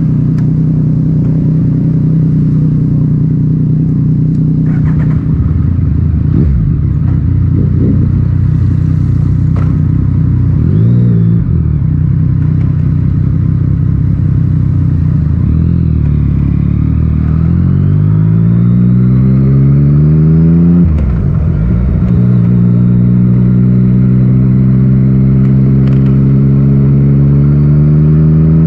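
Yamaha MT-09's three-cylinder engine through an Akrapovic titanium exhaust, on the move. It holds steady revs, then climbs in one gear for several seconds, drops sharply at a shift about twenty-one seconds in, and settles at steady, slowly rising revs.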